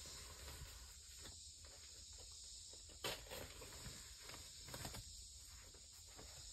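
Faint handling sounds as kraft-faced fiberglass insulation batts are pushed up into a ceiling: soft rustling and a few light knocks, the sharpest about three seconds in, over a steady high hiss.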